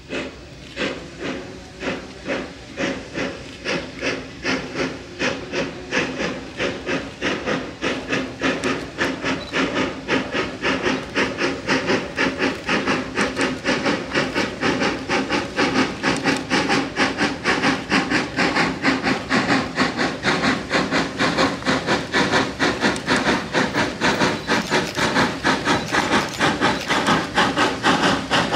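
Narrow-gauge steam locomotive exhaust chuffing as the freight train works in, the beats quickening from about one to about three a second and growing steadily louder.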